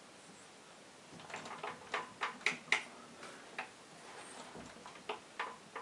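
Light clicks and taps as the aluminium cylinder head of a 156FMI (CG125-clone) engine is rocked by hand and worked loose on its studs. A quick cluster of sharper clicks about two seconds in, then a few scattered ones.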